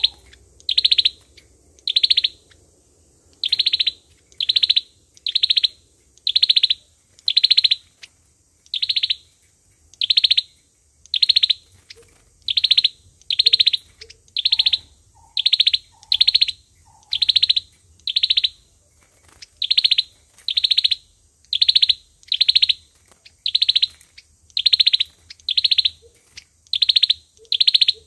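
A sâu dừa songbird giving a short, high call over and over at an even pace of about one call a second, the repeated lure call used by Vietnamese bird trappers. A few faint lower notes come in between the calls now and then.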